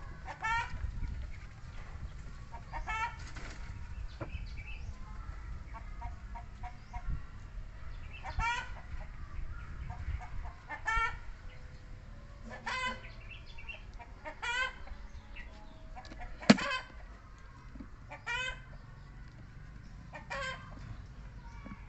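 Short, high-pitched animal calls repeated about every one to two seconds, over a steady low rumble.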